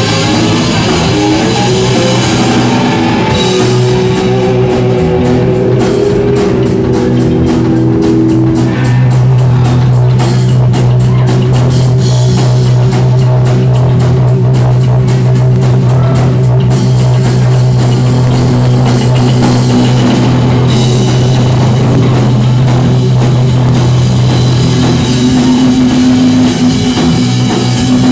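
Live rock band playing an instrumental passage on electric guitar, electric bass and drum kit, loud and steady, with busy, fast drumming in the first half and a long held low note through the middle.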